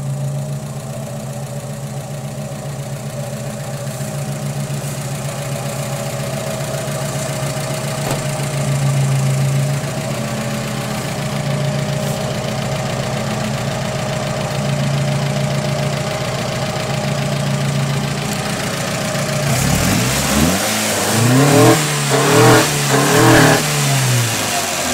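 GAZelle van engine running at a steady idle, then revved up and down about three times near the end.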